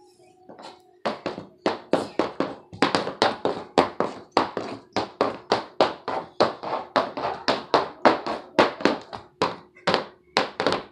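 Adult-size red high-heeled shoes clacking on a hardwood floor as a small child walks and stomps around in them: quick, uneven heel clacks, several a second, starting about a second in.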